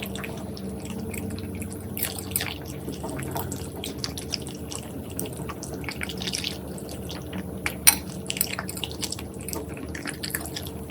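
Poodle chewing and smacking on moist produce, making irregular wet clicks with one sharper click near the end.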